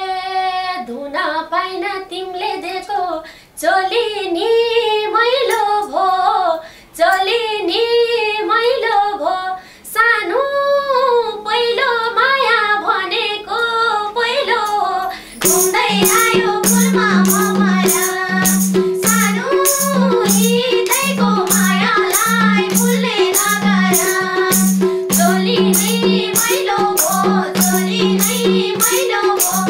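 Group of women singing a Nepali dohori folk song. For the first half the voices are nearly alone; about halfway through, a madal hand drum with jingling percussion comes in with a steady beat under the singing.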